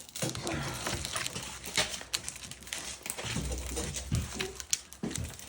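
Large flathead screwdriver prying and scraping against the metal of a compressor being taken apart for its copper, with scattered clicks and knocks. There is a brief low sound about three and a half seconds in.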